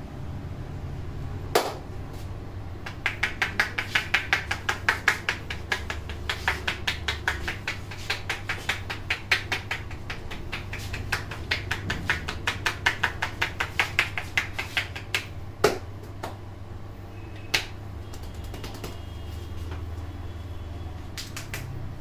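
Hand massage on a man's scalp and wet hair: a rapid, even run of crisp clicks, about six a second, from the barber's fingers tapping and snapping on the head. A few louder single snaps come before and after the run.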